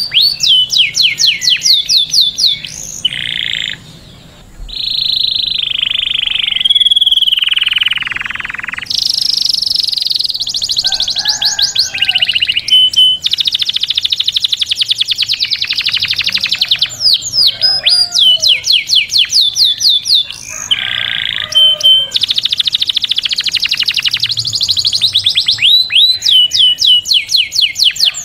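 Male canary singing a long, continuous song: rapid trills and rolls, runs of fast repeated down-slurred notes, and drawn-out buzzing rattles, with a brief pause about four seconds in.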